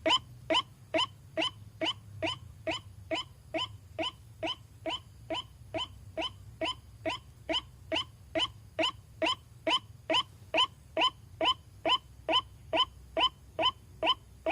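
White-breasted waterhen (ruak-ruak) call repeated in a steady series, a short note about two and a half times a second, each note rising slightly in pitch. This is a lure call played back to attract waterhens.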